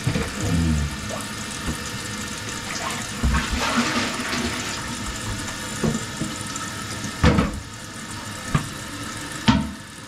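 Toilet fill valve (ball cock) refilling the emptied tank of a Kohler toilet after the supply valve is opened: steady rushing water, with a few sharp knocks in the second half.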